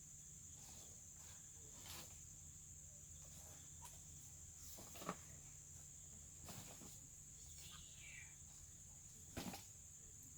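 Near silence: a faint steady high-pitched hiss, broken by a few soft taps and rustles, the loudest about five seconds in and a double tap near the end.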